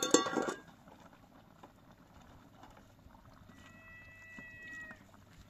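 Dishes and utensils clinking: a few sharp knocks that ring on briefly at the start, then quiet background. A faint steady tone sounds for about a second and a half in the second half.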